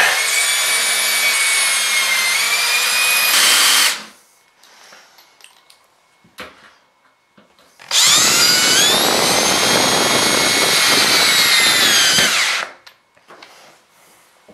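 Cordless drill running in two bursts of about four seconds each, the second starting about eight seconds in and rising slightly in pitch as it speeds up. The drill's fan blows on the microphone, adding a harsh rush of wind noise over the motor whine.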